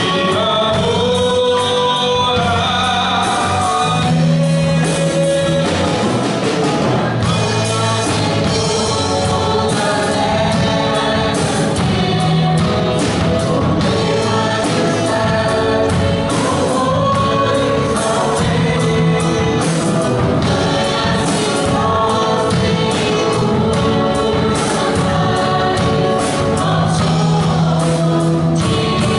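Live gospel worship music: a man and a woman singing into microphones, accompanied by electric and acoustic guitars, keyboard and percussion.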